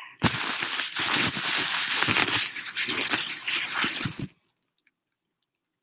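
A loud burst of rustling, crackling handling noise close to the microphone, starting suddenly and cutting off about four seconds in.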